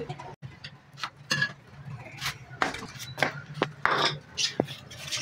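A series of short knocks and clinks at uneven intervals as clay bowls and a cage's wooden door with a metal barrel bolt are handled.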